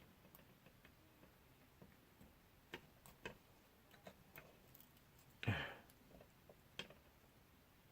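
Faint, scattered small clicks and taps of hands handling small parts and tools during a drone gimbal ribbon-cable repair, with one louder brief rustle about five and a half seconds in.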